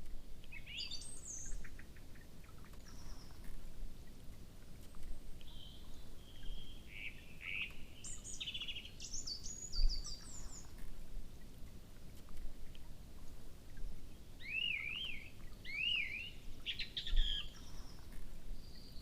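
Small songbirds calling and singing: scattered high chirps and short whistled trills, with a run of quick rising-and-falling notes about fourteen to sixteen seconds in. Two brief low thumps come about ten and seventeen seconds in.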